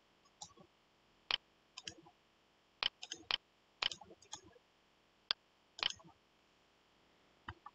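Faint computer mouse clicks, scattered and irregular, some in quick pairs, while working in a software editor.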